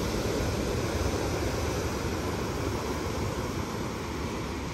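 Wind on the microphone over a steady rush of breaking surf.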